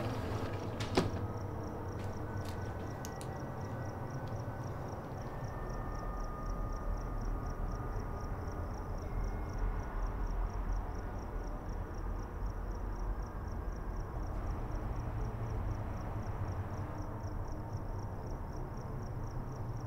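Crickets chirping in a steady, evenly pulsed high trill over a low, steady rumble. A single sharp knock sounds about a second in.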